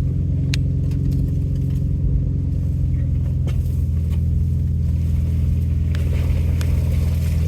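Off-road 4x4 truck engine running at a steady low crawl speed, with a constant low rumble and a few light clicks and knocks from the truck working over the rough trail.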